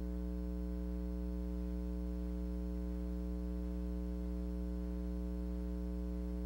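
Steady low electrical hum, a buzz with many even overtones that does not change.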